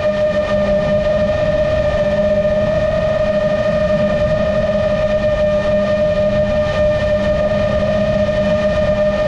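Motors and propellers of a GepRC MOZ7 seven-inch long-range FPV quadcopter heard from the onboard camera: a steady whine that holds one pitch at a constant throttle, over a rough rush of wind on the microphone.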